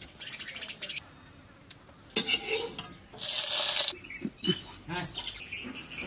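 Small unglazed clay pots being handled: meat packed into one by hand, then a clay lid scraped onto its rim. The scrape is a rough hiss lasting under a second just past the middle, followed by a few light knocks of clay on clay.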